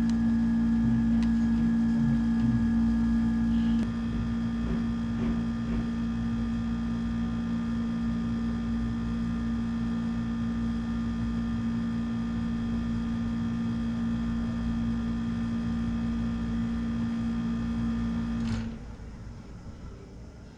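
Panasonic air conditioner running with a steady electrical hum. A few seconds in, part of the sound drops away. Near the end the hum cuts off and the unit goes quiet as it switches off.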